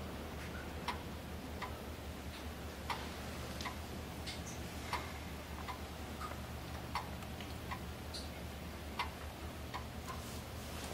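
Slow, even ticking, about three ticks every two seconds, over a low steady hum.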